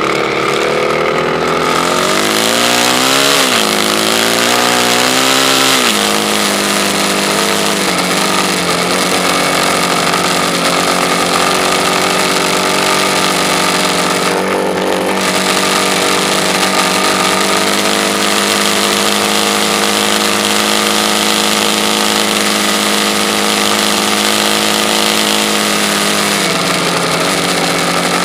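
Sand rail dune buggy engine revved twice in the first few seconds, then running at a steady idle, with a brief blip of throttle a couple of seconds later and a small drop in pitch near the end.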